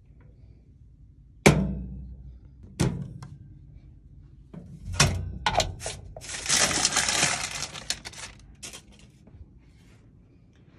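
Two sharp metallic knocks from a small toaster oven, the first the loudest, then light clicks and a crinkly rustle of baking paper lasting about a second and a half as a polymer clay jar is taken off it.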